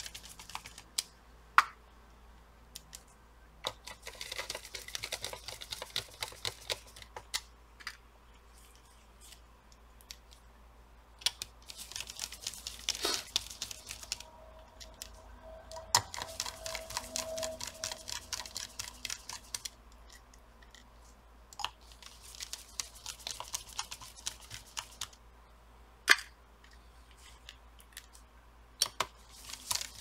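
Small screwdriver driving the laptop cooler's screws back in: spells of fine rapid clicking a few seconds each, broken by occasional sharp single clicks and taps, as the heatsink is screwed down over fresh thermal paste.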